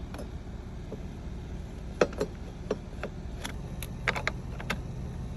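Scattered light metallic clicks and knocks, about a dozen in the latter part, from the lawn mower blade and its mounting hardware being handled and refitted.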